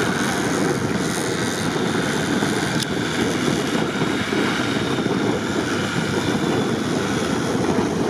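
UAZ off-roader's engine labouring steadily as it drives out of a deep snowy rut, mixed with wind buffeting the microphone in a blizzard.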